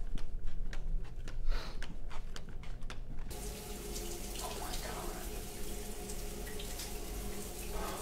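A run of sharp clicks, about three a second, then a shower running, starting suddenly about three seconds in: a steady hiss of water spraying and splashing in a tiled stall.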